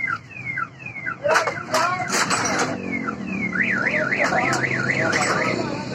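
Electronic car alarm cycling through its tones: a string of short falling chirps, then a fast up-and-down warble of about four swings a second that stops shortly before the end. A few sharp knocks sound between one and two seconds in.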